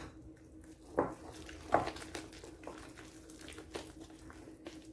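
Thick bonda batter being beaten by hand in a glass bowl: soft wet squelches and slaps, with two louder ones about one and nearly two seconds in, over a faint steady hum.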